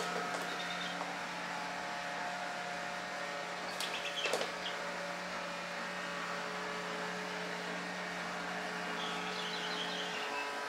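A steady low electrical hum with a few higher tones, which cuts out near the end. A few brief clicks come about four seconds in, and faint high chirps near the end.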